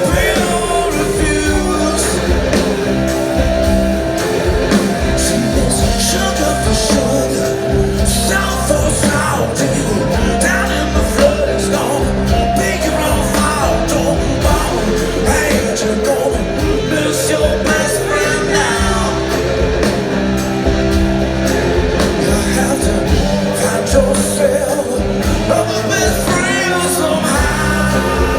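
Live rock band playing with a sung vocal line over bass, drums and guitar.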